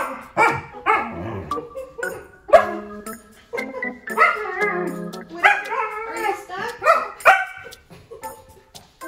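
German Shepherd puppy vocalising in a run of short barks and whines that rise and fall in pitch.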